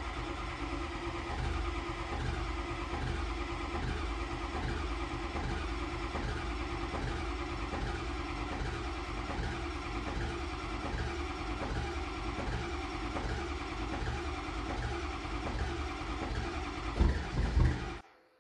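Ford 6.0 Power Stroke V8 turbo-diesel running rough just after a cold start, with an even surge about once a second; the owner reckons it is due for new injectors and glow plugs. A few louder thumps come near the end before the sound cuts off suddenly.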